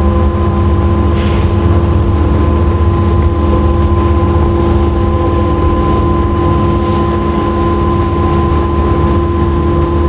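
A machine running steadily at constant speed, a loud even drone with several fixed pitches over a low rumble.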